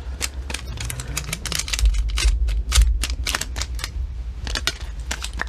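ASMR sticky sounds: a tacky surface pressed and pulled apart close to the microphone, giving rapid crisp clicks and pops, with a low thump about two to three seconds in.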